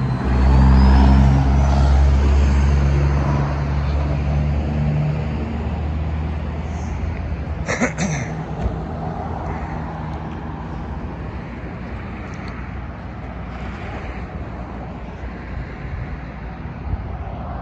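Motor vehicle running on a road: a loud low engine rumble for the first few seconds that fades into steady road noise, with a sharp click about eight seconds in.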